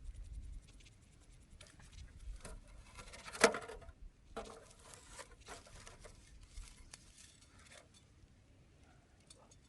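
Wood fire crackling, with irregular small ticks and pops and one sharp snap about three and a half seconds in, as it burns down toward glowing embers.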